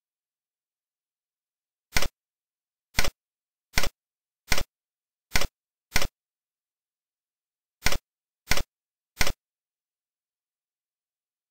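Nine short, sharp clicks at uneven spacing, with a pause of about two seconds midway, as the stamp-page arrow button in Tux Paint is clicked again and again to page through the stamps.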